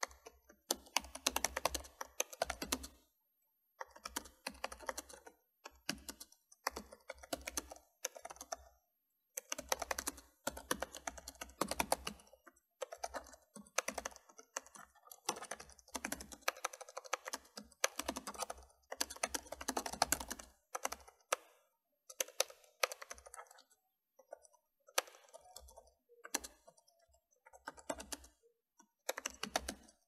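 Typing on a keyboard: rapid keystrokes in runs of about one to three seconds, with short pauses between runs.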